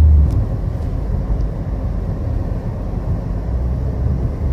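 Car cabin noise while driving: steady low engine and road rumble heard from inside the car, with a deeper drone that fades just after the start and swells again near the end.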